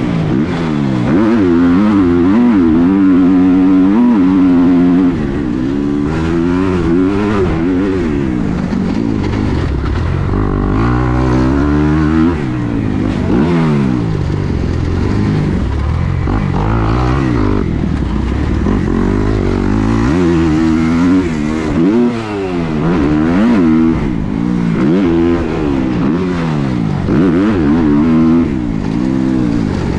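Motocross bike engine, heard from on board, revving up and dropping back over and over as the rider accelerates, shifts and rolls off around the track; the pitch rises and falls every second or two.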